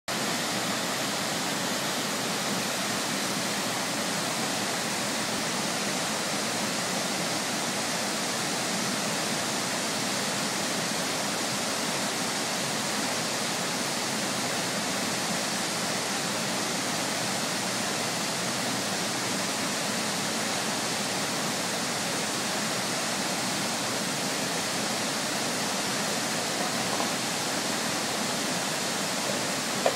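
Steady rush of whitewater rapids pouring over boulders in a mountain river.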